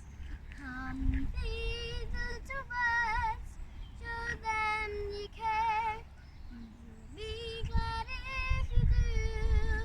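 A young girl singing a slow ballad solo, holding long notes with vibrato, with a short dip in the singing about two-thirds of the way through.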